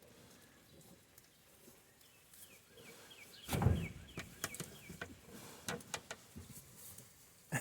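Piglets stirring and climbing over one another in a pen: a run of faint, short high squeaks, then a louder burst about three and a half seconds in, followed by scattered rustling and knocks.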